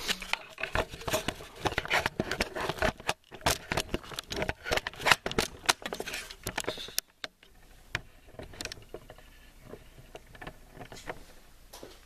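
Handling noise from a camera being carried and set down on a workbench: a run of clicks, knocks, rattles and scrapes. About seven seconds in it goes quieter, leaving only a few light clicks and shuffles.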